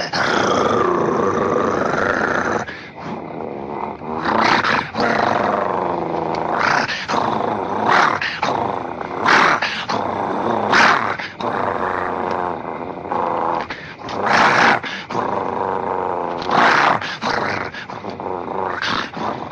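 Werewolf monster growls from an old film soundtrack: a drawn-out pitched cry that bends in pitch for the first two to three seconds, then a string of short, loud growls a second or two apart.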